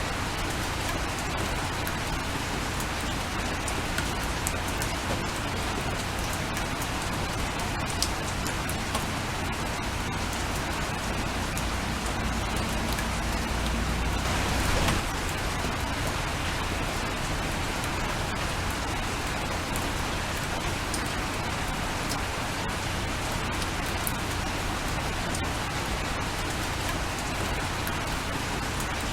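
Steady rain falling, a constant hiss with many individual drops ticking. About halfway through, a low rumble swells briefly and cuts off suddenly.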